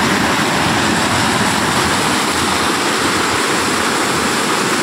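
Muddy floodwater rushing and churning into white water, a loud, steady, unbroken rush.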